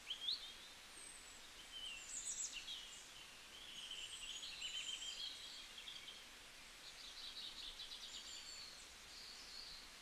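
Several songbirds chirping and trilling, with short high notes, rapid trills and quick upward sweeps, over a faint steady hiss of outdoor ambience.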